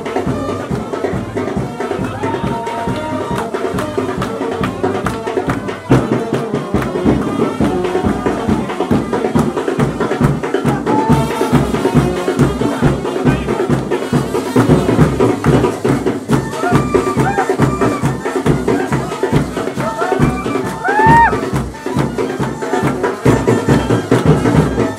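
Folk-style song with a steady drum beat, played loud; the drum beat comes in strongly about six seconds in.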